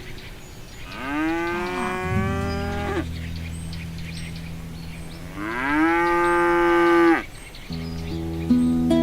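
A cow mooing twice, two long calls of about two seconds each that rise in pitch at the start and then hold steady. Soft background music with low held notes plays underneath.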